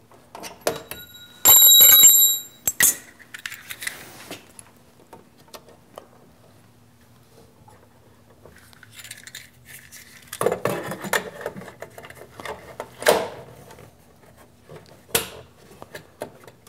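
Hands fitting parts and wiring inside a steel electrical enclosure: scattered clicks, rattles and handling noise. Near the start there is a loud ringing tone lasting about a second, and later a stretch of rattling and two sharp clicks.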